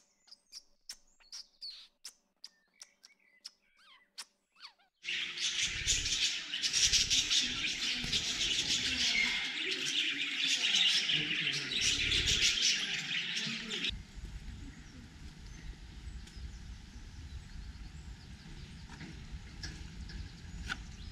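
A flock of budgerigars chattering, a dense mass of high chirps that starts suddenly about five seconds in and stops abruptly about fourteen seconds in. Before it come only sparse chirps and clicks. After it, a quieter low rumbling noise remains.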